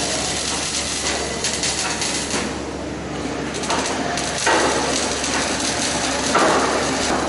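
Robotic arc-welding torch welding a steel scaffolding plank: a steady, noisy arc sound, louder in two stretches in the second half.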